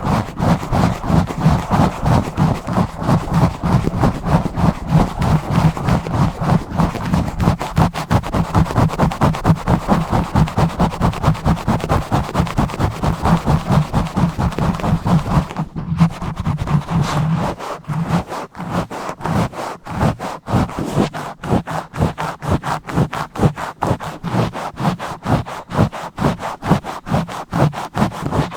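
Fingers scratching fast and roughly directly on an uncovered microphone, in rapid rhythmic strokes several times a second. About sixteen seconds in the strokes pause briefly, then resume more clipped and separated.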